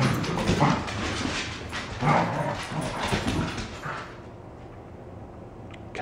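Dogs at play, barking in short bursts over the first four seconds, then quieter.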